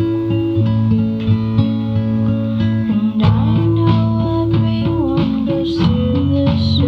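Background music led by plucked guitar, shifting about three seconds in to a fuller, busier arrangement.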